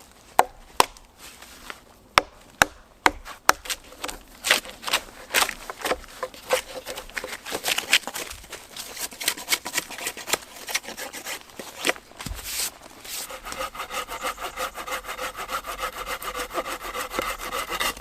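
A hand saw cutting wood: a few sharp knocks in the first seconds, then quick back-and-forth strokes that settle into a fast, steady sawing rhythm with a ringing note in the last few seconds.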